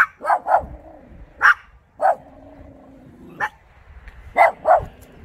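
Small dog barking at a bronze statue it takes for a stranger: about eight short, sharp yaps in irregular groups, typical of alarm barking at something the dog is wary of.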